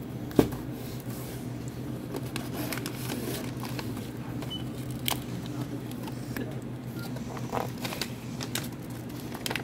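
Plastic Smarties candy bags crinkling and rustling as they are handled in a cardboard box and set on a desk, with scattered light clicks. There is one sharp knock about half a second in, over a steady low hum.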